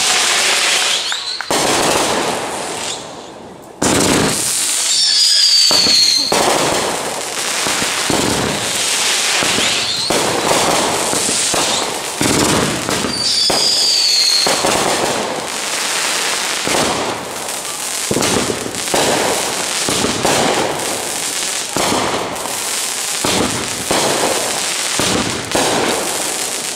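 Consumer aerial fireworks going off in quick succession: repeated bangs of bursting shells with crackling between them. Two high, falling whistles come about five seconds and about fourteen seconds in.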